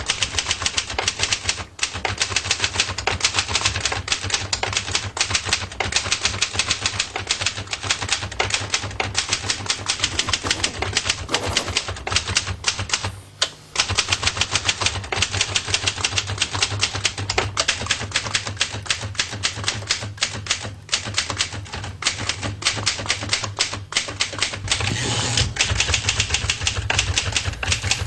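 Typewriter typing fast and without stopping, a dense run of rapid key strikes. It breaks off briefly about two seconds in and again about halfway through.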